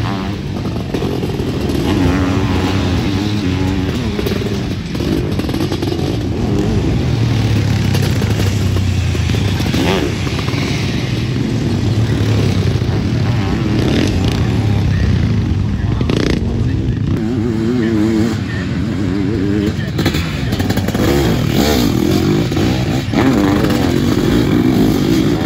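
Motocross sidecar outfits racing through a dirt corner, several engines revving and accelerating one after another, their pitch rising and falling as each outfit passes.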